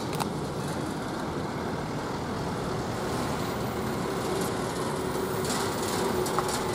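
Diesel engine of an Eicher refrigerated box truck running steadily as it drives past, a little louder near the end as it comes close.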